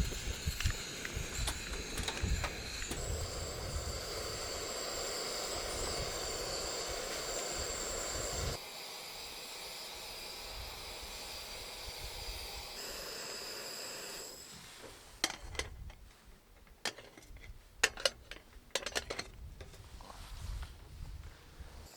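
Outdoor campsite ambience in several short clips joined by abrupt cuts, with steady high-pitched tones over a noisy background. From about fifteen seconds in comes a run of sharp clicks and knocks: cooking gear being handled to cook rice.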